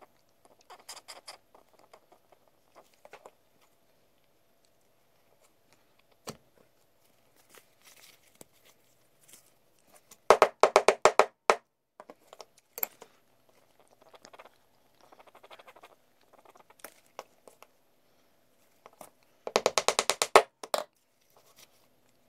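A glued brass pen tube being worked into the drilled hole of a wooden pen blank. Two bursts of rapid sharp clicks, about ten a second and each about a second long, come about ten seconds in and again near the end, with faint handling noises between them.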